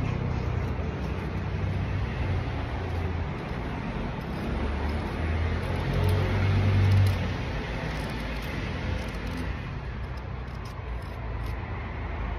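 Steady low rumble of road traffic, swelling about six to seven seconds in.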